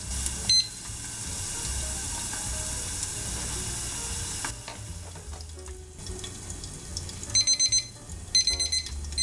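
Okonomiyaki sizzling under the lid of a frying pan, a steady hiss that drops away about four seconds in. A short beep from a Tanita digital kitchen timer as it is started, then near the end its alarm beeping rapidly in two bursts, signalling that the four-minute cook is up.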